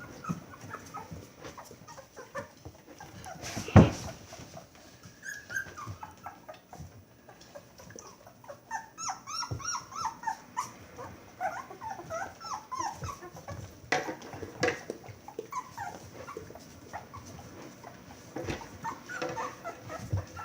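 A litter of two-week-old puppies whimpering and squeaking, many short high cries overlapping. A sharp knock sounds about four seconds in.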